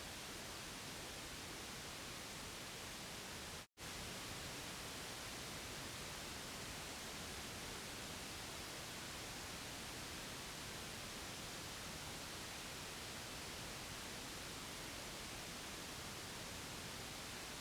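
Steady white noise, an even hiss with no pitch or rhythm, broken once by a split-second dropout to silence about four seconds in.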